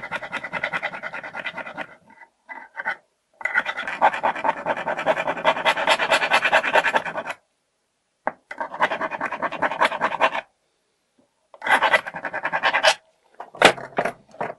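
Rapid scrubbing strokes on the open steel case of an old mortise door lock, cleaning off dirt and rust. The scrubbing comes in four bursts of a few seconds with short pauses between, and a few sharp metal clicks follow near the end.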